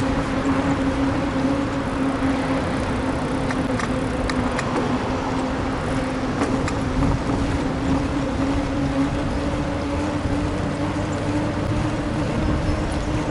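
Steady rumble of riding a bicycle along city streets, road and traffic noise, with a steady hum that slowly rises in pitch and a few light ticks near the middle.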